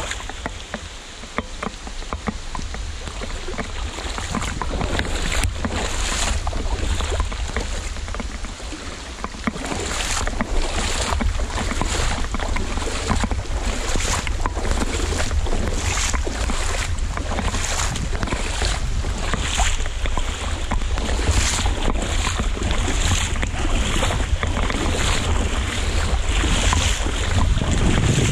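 Rubber boots splashing through shallow river water, one splashing step about every second, the splashes growing louder about ten seconds in. Under them, a steady hiss of heavy rain on the water and a low rumble of wind on the microphone.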